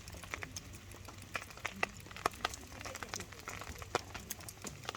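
Campfire burning down near its end, the wood crackling with irregular sharp pops, several a second.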